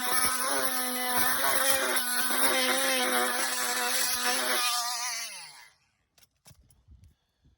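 Dremel Multi-Max oscillating multi-tool running at a steady high buzz, its scraper blade turned sideways stripping old paint from a boat hull. About five seconds in it is switched off and its pitch falls away as it winds down, followed by a few faint clicks.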